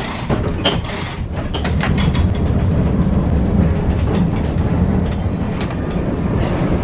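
Vintage electric tram running on its track: a steady low rumble of wheels and running gear from inside the car, with several sharp clicks and knocks in the first two seconds.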